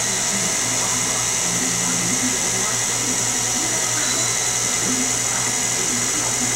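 KitchenAid Ultra Power Plus tilt-head stand mixer running steadily at a constant speed with an electric motor hum and whine, its beater creaming a thick, pale batter in a steel bowl.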